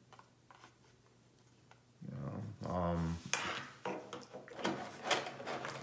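Small plastic gadgets, an LED light and a microphone, handled and set down on a wooden table. Quiet for about two seconds, then several sharp clicks and knocks, with a brief low voice in between.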